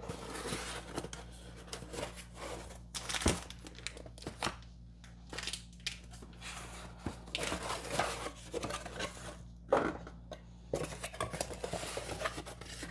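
Cardboard boxes handled on a tabletop: flaps folded shut and opened with scraping and rustling, and two sharp knocks as boxes are set down, about three and about ten seconds in.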